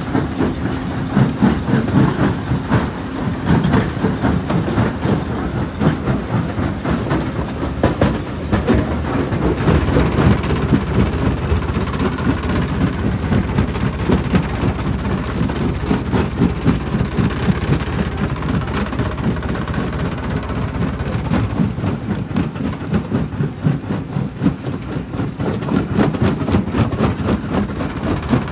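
Stone jaw crusher running: a continuous low rumble with rapid, irregular knocking and clatter as rock is crushed between its jaws.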